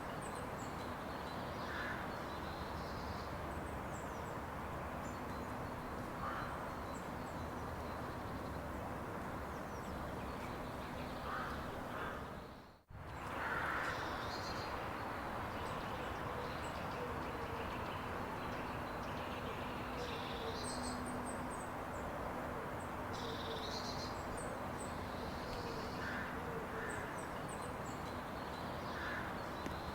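Steady outdoor ambient noise with scattered short bird calls. It briefly drops to near silence about thirteen seconds in, then resumes.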